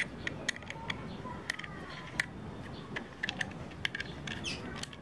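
Irregular small clicks and taps, a few a second, from tightening the fittings that clamp a chainsaw attachment onto an angle grinder.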